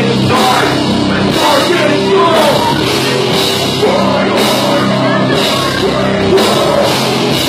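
Metal/hardcore band playing live at full volume: distorted guitars, bass and pounding drums with cymbal crashes, under shouted vocals.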